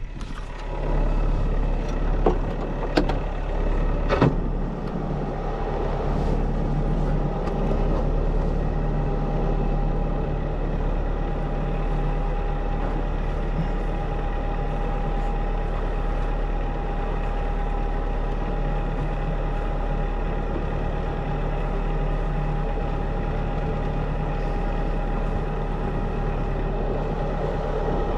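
1985 Beneteau First 38 sailboat's inboard diesel engine running steadily, a constant low drone with a steady tone above it, with a few sharp knocks in the first few seconds.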